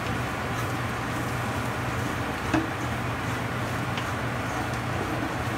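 Steady low hum and hiss from a stovetop pot of cabbage, carrots and potatoes cooking in their own juices without added water, with two faint clicks in the middle.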